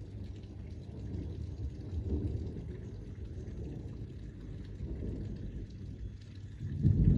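Thunder rumbling low and rolling, swelling a couple of times and surging loudest near the end.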